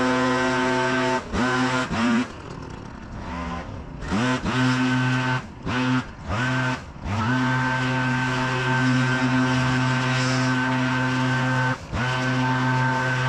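Gas engine of a leaf vacuum running at high speed. About a dozen times in the first seven seconds it drops off and revs back up, with a longer lull from about two to four seconds in, and it dips once more near the end.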